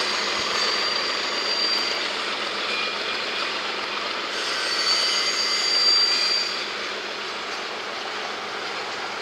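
Freight cars rolling past on steel rails with a steady rolling rattle of wheels and flatcars. Thin high wheel squeals come and go, loudest about five to six seconds in, then it settles back to plain rolling.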